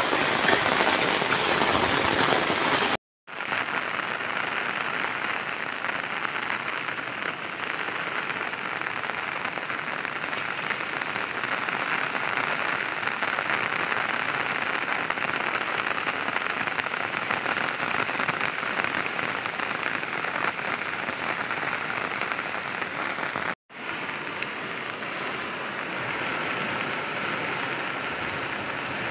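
Steady rushing of water from heavy rain and a flooded, muddy stream running fast. The noise breaks off twice for an instant, once about three seconds in and once near the end.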